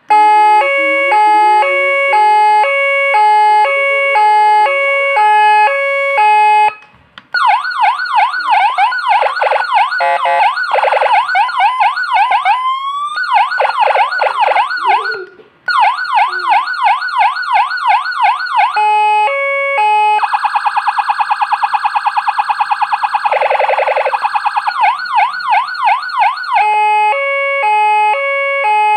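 CJB200HS electronic siren working again after repair, switching through its tones: a high-low two-tone, fast yelping sweeps, a short rising glide, and a rapid warble, then back to the high-low. It cuts out briefly twice, about seven and fifteen seconds in.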